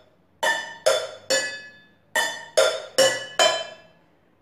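Metal cookware struck with pencils, each hit ringing briefly with a bright metallic tone: three even strikes, a short pause, then four.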